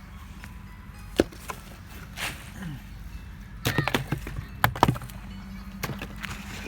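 Dry fallen sticks and twigs cracking and snapping as firewood is gathered: scattered sharp cracks, with a quick cluster of several snaps about four seconds in.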